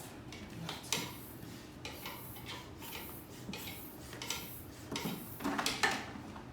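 Hands handling a tyre pump and scooter parts: an irregular string of clicks, rubs and short hissy scrapes, busiest and loudest about five to six seconds in.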